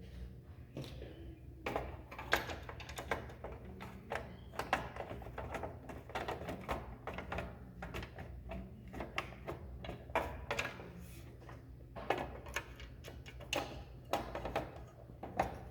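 Irregular clicks, taps and knocks of computer hardware being handled and fitted as a heat sink is attached to a motherboard, over a steady low hum.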